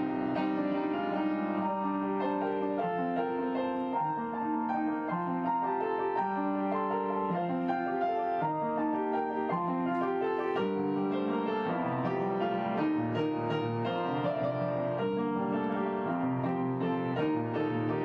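Background piano music: a steady run of notes at an even level.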